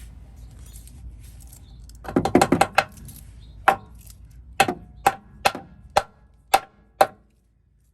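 Sharp knocks during work on the Jeep's steel frame: a quick flurry of about six about two seconds in, then seven single knocks roughly half a second apart.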